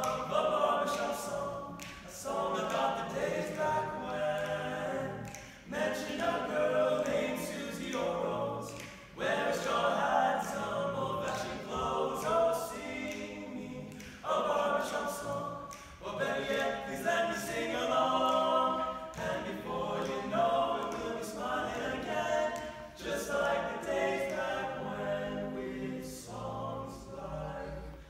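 Male barbershop quartet singing a cappella in four-part harmony, in sustained phrases of a few seconds with brief breaks between them.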